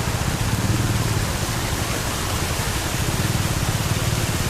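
Steady rushing noise of water flowing in full flood across a road, with a low, uneven rumble underneath.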